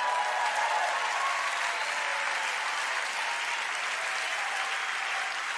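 Large audience applauding, a steady dense clapping that eases slightly toward the end.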